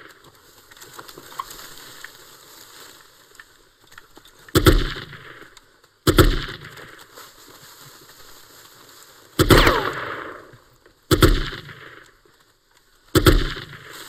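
Five single rifle shots, spaced one to three seconds apart, each ringing out with an echoing tail; the one about nine seconds in is the longest. A quieter steady hiss lies between them.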